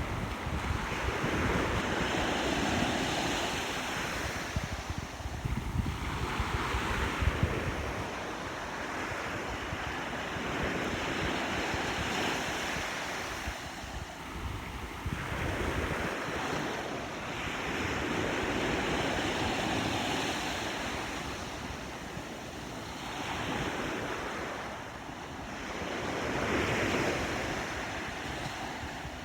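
Sea waves breaking on rocks and washing back out, the surf rising and falling in swells every few seconds. Wind buffets the microphone with a low rumble.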